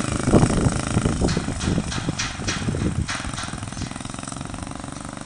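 A motor vehicle engine running close by, with some clatter in the first few seconds, then fading gradually over the last two seconds.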